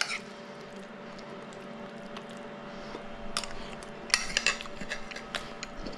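Metal fork and spoon clinking and scraping against ceramic bowls of macaroni and cheese: a few light, scattered taps, most of them in the second half, over a faint steady hum.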